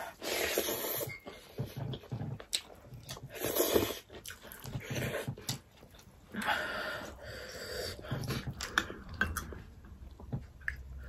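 Close-miked eating with the hands: chewing and lip-smacking clicks, with about four noisy breaths drawn through the mouth, each roughly a second long.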